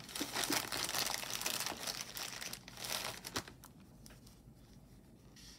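Crinkling and rustling of packaging being handled, with many small clicks, for about three and a half seconds, then dying down to faint room noise.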